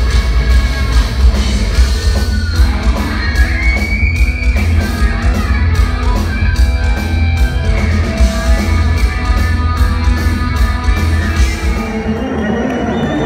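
Live progressive metal band playing loud, with double-neck electric guitar over heavy bass and drums. The heavy low end drops away near the end, leaving held higher notes.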